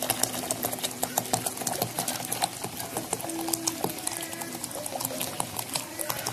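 Hot water pouring in a steady stream from a metal kettle into a plastic jug of coffee powder and sugar, making a dense, continuous splashing crackle.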